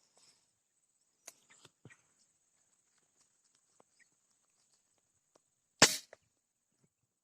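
A single sharp shot from a .177 air gun about six seconds in, preceded by a few faint clicks of handling. A faint, steady high-pitched hum runs underneath.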